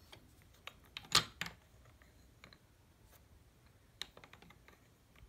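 Magnetic stacking rings clicking and clacking as they are handled and slipped onto their post: a few sharp clicks, the loudest about a second in and another near four seconds.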